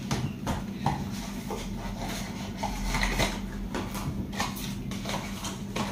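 A small cardboard LED-bulb box being handled and opened by hand: scattered clicks, taps and rustles of the packaging.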